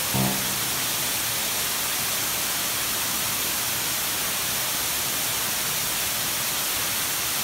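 Steady, even rushing of running water. A last piano note from the background music dies away right at the start.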